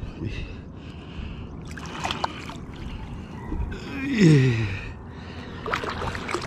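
Water splashing and lapping at the surface as a hooked fish is played in shallow water on light spinning tackle, with short splashy bursts about two and six seconds in. About four seconds in, a man gives one drawn-out exclamation falling in pitch, the loudest sound.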